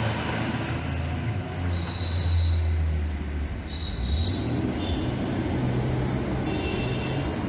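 A bus engine running close by, a low rumble that swells about two seconds in, with a few short high-pitched squeals over it.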